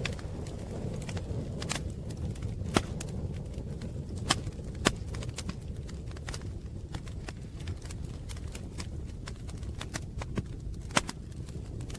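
Wood fire crackling: a steady low rumble of burning with scattered sharp pops, a few louder ones about three, five and eleven seconds in.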